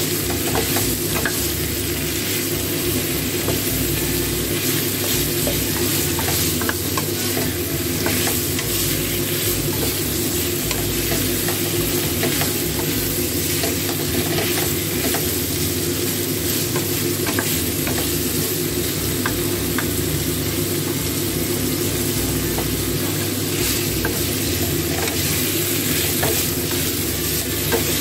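Cubes of pork rib frying in hot oil in a pan: a steady sizzle, with frequent small scrapes and taps as a wooden spatula stirs and turns the meat.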